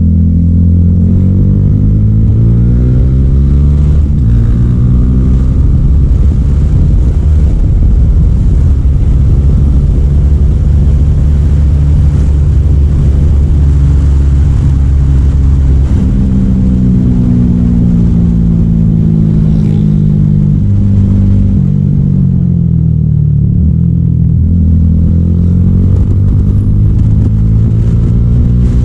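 Motorcycle with an Akrapovic aftermarket exhaust, running loud as it rides, the engine note rising and falling with throttle and gear changes. A steady rush covers the engine note through the middle, and near the end the pitch drops repeatedly as it slows.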